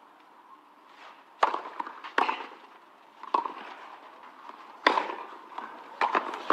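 Tennis rally on a clay court: a series of sharp pops as the ball is struck by the rackets and bounces, about five over a few seconds, with faint crowd murmur between.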